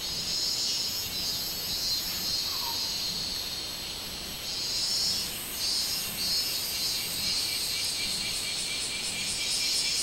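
Minmin-zemi cicadas (Hyalessa maculaticollis) singing together, a high shrill drone that swells and fades in waves, dipping briefly about four and again five and a half seconds in.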